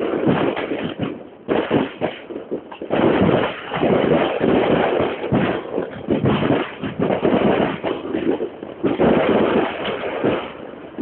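Fireworks display going off: many bangs and crackles in close succession, with brief lulls between volleys.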